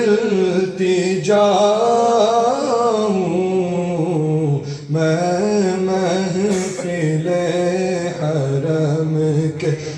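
A man's solo voice singing a naat unaccompanied into a microphone, drawing out long melismatic notes whose pitch wavers up and down, over a steady low drone.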